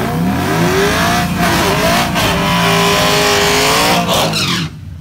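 Modified Dodge Charger Hellcat's supercharged 6.2-litre V8 revving high in a burnout on drag radials, the rear tyres spinning and screeching. The revs climb at the start, hold high with a couple of brief dips, then drop off abruptly near the end.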